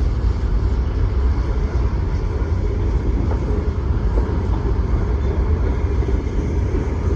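Freight train cars rolling past: a steady, heavy rumble and clatter of wheels on the rails, with no horn.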